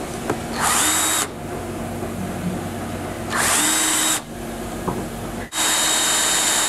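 Power drill with a 13/64-inch bit drilling pilot holes through a spa receptacle's flange into the acrylic shell, run in three short bursts, the last one longer.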